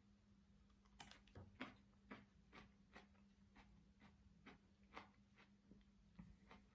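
Faint chewing of a pickled ram's horn chilli pepper: soft, wet mouth clicks about twice a second, starting about a second in, over a low steady hum.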